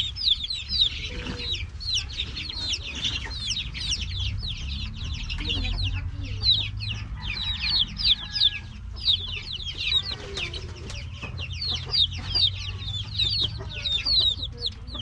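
A crowd of week-old native chicken chicks peeping without pause, many short falling chirps overlapping, over a steady low rumble.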